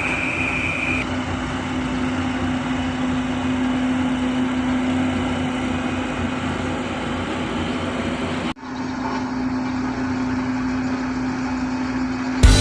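Heavy road-works machine's engine running steadily with a constant hum. The sound cuts out abruptly about eight and a half seconds in and picks up again at once.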